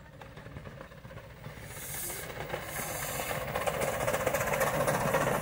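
Miniature steam locomotive hauling passenger carriages, approaching and growing steadily louder as it nears. A hiss of steam comes in about two seconds in, over a rhythmic beat of exhaust and wheels that strengthens as the train comes close.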